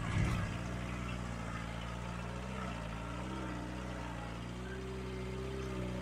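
Off-road jeep's engine running at low, steady revs while the jeep crawls up a rutted dirt track, its pitch drifting slightly up and down.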